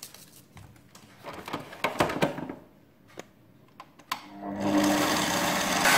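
Clicks and knocks as a wire whisk is fitted and the stand mixer's head is lowered into the bowl. About four seconds in, the mixer's motor starts with a low hum and runs steadily, louder towards the end, the whisk beginning to cream butter with sugar.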